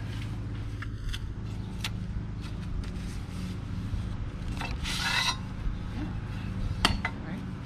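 Sling chair fabric and its spline being pulled along the metal frame's channel, with a short scraping rasp about five seconds in and a couple of light clicks against the frame. A steady low hum runs underneath.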